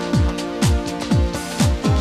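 Electronic background music with a steady kick drum, about two beats a second, each kick dropping in pitch, over sustained synth chords and crisp percussion.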